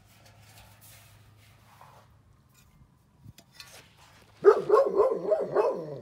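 Great Pyrenees howling: a loud howl begins about four and a half seconds in, its pitch wobbling up and down several times before dropping away at the end.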